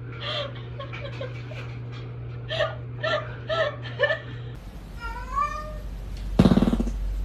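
A domestic cat meowing near the end: gliding calls, then one loud, drawn-out meow about six seconds in. Before that comes a run of short, clipped sounds.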